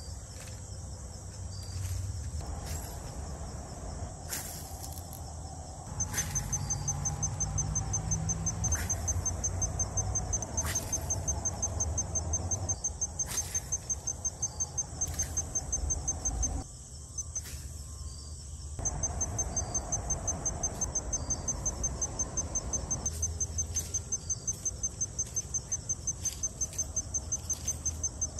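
Insect chirping in a high-pitched, rapid, even pulse train that sets in about six seconds in, over a low steady rumble with a few scattered clicks.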